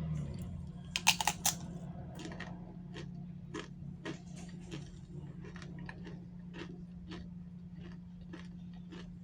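Close-up chewing of food, with short crunchy clicks about two a second, after a quick run of four sharp, louder clicks about a second in. A steady low hum runs underneath.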